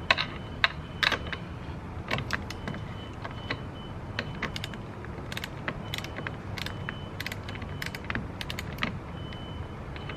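Ratchet wrench with a 12 mm socket clicking in short, irregular runs as a car battery terminal clamp nut is loosened, along with small metallic taps of tool against terminal.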